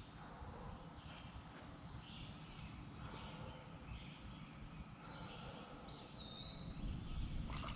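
Quiet outdoor ambience: insects drone steadily on one high pitch, and about six seconds in a bird gives one whistled note that dips and then slides slowly upward.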